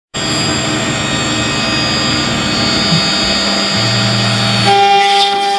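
CNC router spindle running and milling a wooden tail plane spar, a dense cutting noise over a steady machine whine. About three-quarters of the way through the cutting noise drops away, leaving a steadier, clearer whine.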